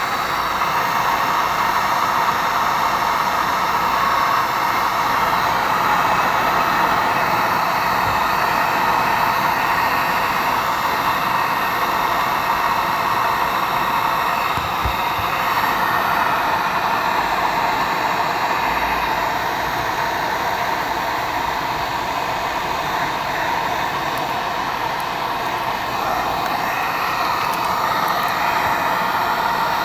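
Hot-air blower running steadily, heating the iPad mini 3's glass digitizer to soften its adhesive so the glass can be lifted off.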